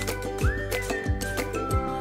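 Background music with a steady beat, a thump about every two-thirds of a second under a gliding melody line.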